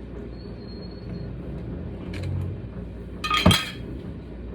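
A glass jar of homemade pickles is set down or knocked against a hard surface, giving one sharp clink with a brief ring about three and a half seconds in, after a softer low handling thump.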